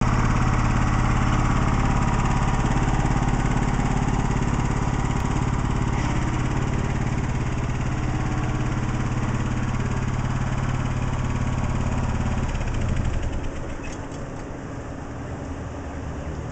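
Cub Cadet riding lawn tractor's engine running steadily as the tractor is driven across the lawn. About thirteen seconds in, the engine sound drops sharply and only a much quieter sound is left.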